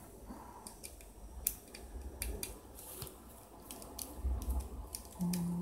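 Small sharp clicks and ticks of a precision screwdriver on the tiny screws and plastic frame of an opened Alcatel One Touch Pixi 3 phone, with low handling knocks. A short, low, steady hum comes in near the end.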